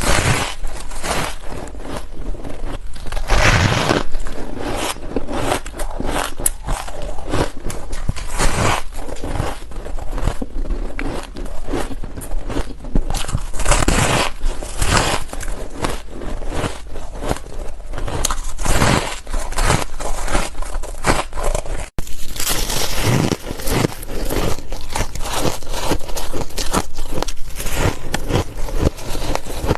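Ice being bitten and chewed close to the microphone: a continuous run of dense, crackling crunches.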